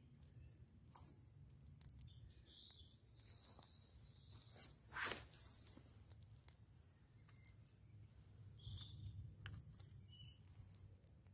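Near silence: a faint low rumble with scattered small ticks and one brief louder crackle about five seconds in.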